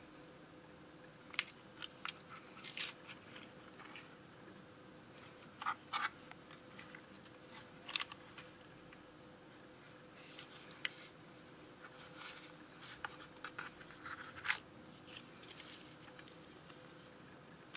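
Irregular sharp clicks, taps and short paper rustles as a small plastic mini thermal label printer is handled: its lid is opened and closed and its printed paper strip is torn off.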